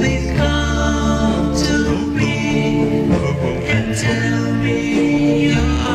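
1962 doo-wop record: a vocal group singing held harmonies over a backing band with a steady bass.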